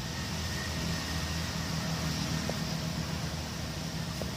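Steady outdoor background noise: a low rumble under an even hiss, with a couple of faint clicks.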